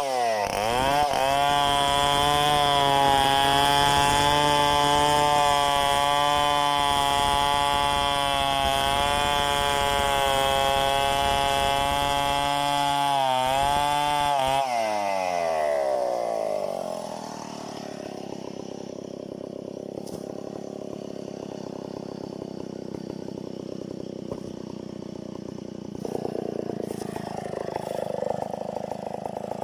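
Stihl two-stroke chainsaw held at full throttle for about fourteen seconds, then dropping back to a quieter idle. The idle wavers and rises a little near the end.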